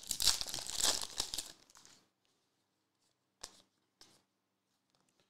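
Foil wrapper of a Recon basketball card pack being torn open and crinkled for about two seconds, followed by a single short click.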